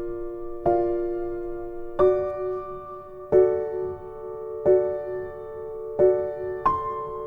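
Background music of slow piano chords, a new chord struck about every second and a third and left to ring and fade, with a quicker extra chord near the end.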